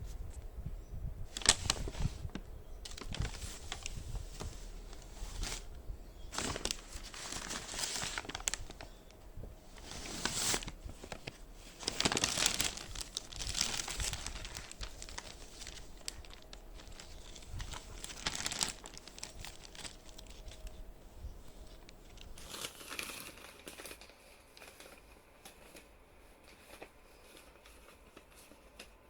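Packaging crinkling and rustling in irregular bursts as a parcel of clothes is handled and torn open, dying down over the last several seconds.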